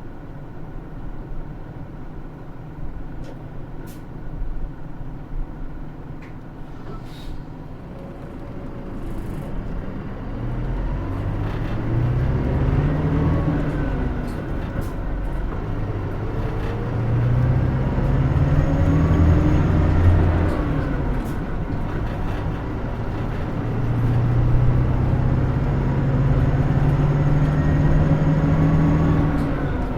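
Cabin sound of a Hino Rainbow II route bus. For about the first ten seconds there is only a low rumble; then the diesel engine grows louder and climbs in pitch as the bus accelerates. The pitch drops back twice, about fourteen and twenty-one seconds in, as it shifts up, before holding steady near the end.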